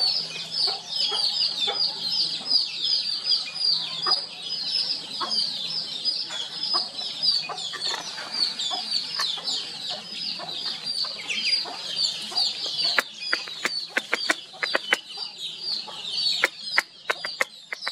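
A dense, continuous chorus of short, high, falling chirps from many birds. Over the last five seconds a string of sharp clicks cuts through it.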